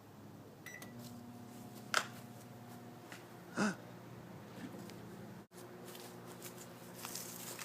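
Microwave oven keypad beep, then the oven starting and running with a steady hum. Two sharp pops come from the TV remote heating inside it.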